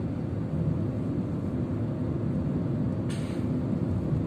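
Steady engine and road noise of a moving automatic car, heard from inside the cabin. About three seconds in there is a brief hiss.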